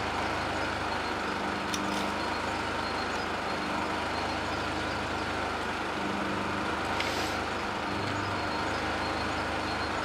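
Steady hum and hiss of poor-quality recording noise, with a few faint clicks about two seconds in and a short rasp around seven seconds in.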